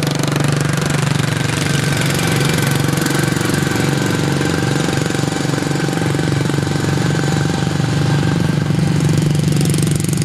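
Small racing lawn mower engines running hard on track, a loud, steady buzzing drone. Several pitches overlap and shift during the first couple of seconds.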